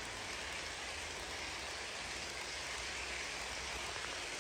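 HO scale model passenger train rolling past on sectional track: a steady hiss of metal wheels on the rails with a low hum underneath.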